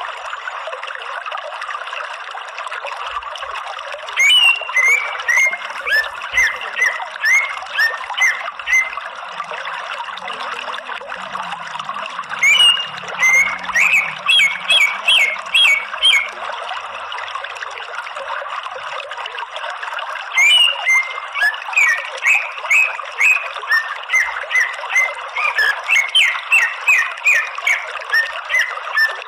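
Greater green leafbird (cucak ijo) singing in three bouts of short, sharp, repeated notes, about two a second, over a steady rush of running water.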